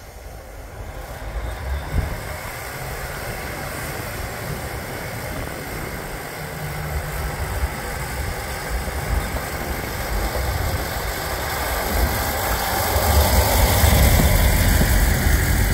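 Northern Class 156 diesel multiple unit moving slowly past, its underfloor Cummins diesel engines running with a low rumble that grows steadily louder as the cars come close, loudest near the end.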